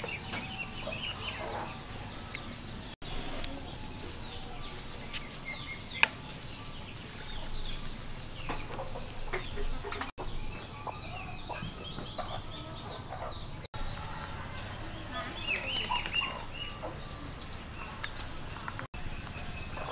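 Chickens clucking in a farmyard over a steady run of rapid high chirps, several a second. One sharp click about six seconds in is the loudest moment, and the sound cuts out briefly four times.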